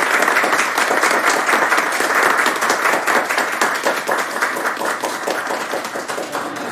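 Applause: many hands clapping in a dense, irregular patter that gradually thins and fades.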